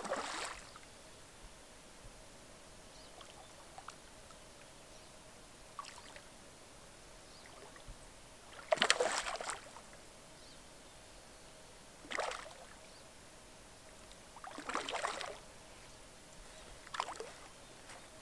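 A hooked fish thrashing and splashing at the lake surface while being played on a fly rod. About five separate bursts of splashing, the loudest and longest about halfway through.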